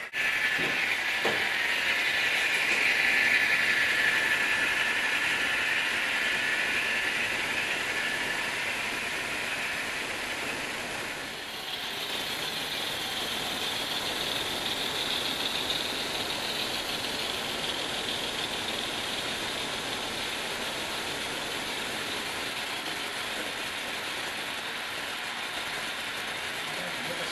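HO scale model trains running on the layout: a steady rolling rattle of motors and wheels on the track, loudest in the first few seconds and changing in character about eleven seconds in as a different train passes.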